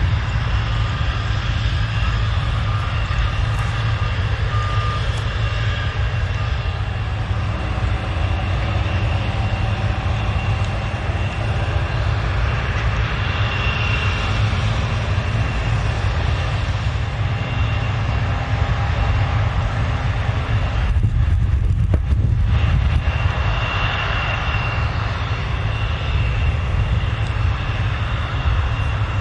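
Airbus A220's Pratt & Whitney PW1500G geared turbofan engines running at idle: a steady high whine over a constant low rumble.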